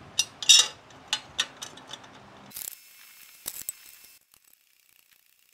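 Galvanized steel dolly parts and bolts clinking and knocking together as a square-tube leg is fitted and bolted to the frame: several sharp, irregular clinks in the first second and a half, and a couple more about three and a half seconds in.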